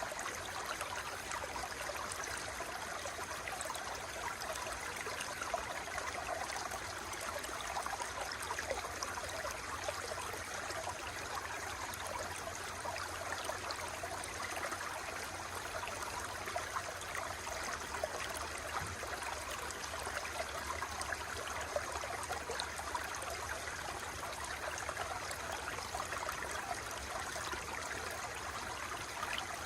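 Running water flowing and splashing steadily, with many small bubbling, trickling flickers over a continuous rush.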